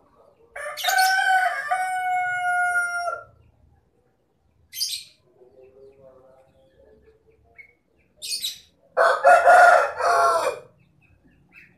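Rooster crowing twice: a long, clear crow in the first three seconds, then a shorter, harsher, louder crow near the end. Brief high bird chirps come between the two.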